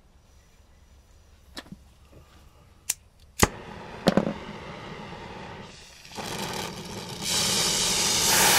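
A few faint clicks, then a gas soldering torch lights with a sharp pop about three and a half seconds in, and its flame hisses steadily, dipping briefly and then growing louder near the end.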